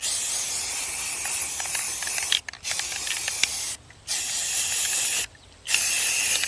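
Rust-Oleum camouflage aerosol spray paint can hissing in four bursts: a long one of over two seconds, then three shorter ones, with brief breaks between.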